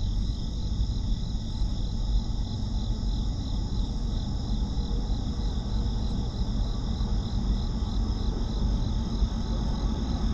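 Insects chirping in a steady pulsing chorus, high-pitched and unbroken, over a low steady rumble.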